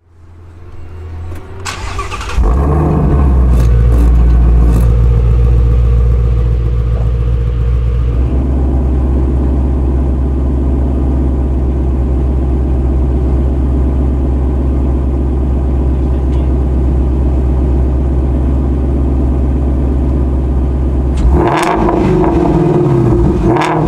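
Ford Mustang Shelby GT350's 5.2-litre V8 starting: the starter cranks briefly and the engine catches about two seconds in, then idles steadily, its note settling about eight seconds in. Near the end it is blipped twice, the revs rising and falling quickly.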